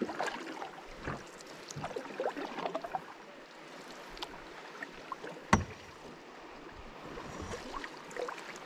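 Canoe paddles dipping and pulling through river water: small splashes and drips over a steady wash of moving water, with one sharp knock about halfway through.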